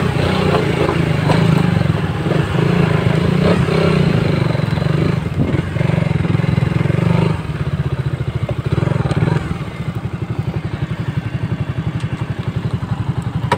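Suzuki motorcycle engine running under way on a dirt trail, then dropping off about seven seconds in and settling to an even, pulsing idle near the end.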